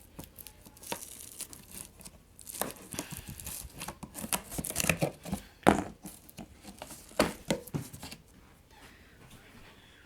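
Packaging being torn open and crinkled by hand as a speaker-system box is unpacked: irregular ripping and crackling, with a few sharp knocks, the loudest a little over halfway through.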